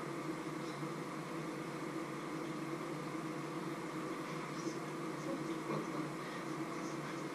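A steady hum and hiss, with a few faint high crackles about halfway through and near the end.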